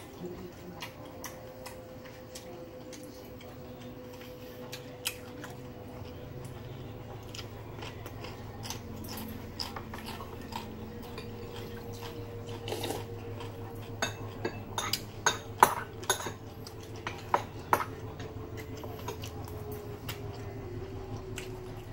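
Cutlery and dishes clinking, with a run of sharper, louder clinks a little past the middle, alongside mouth sounds of chewing food.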